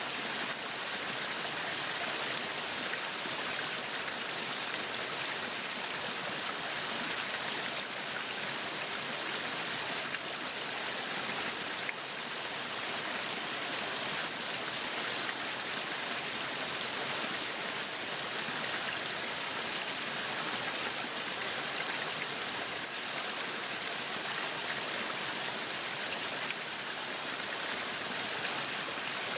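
Meat sizzling steadily on a yakiniku grill, a continuous crackling hiss that holds at an even level.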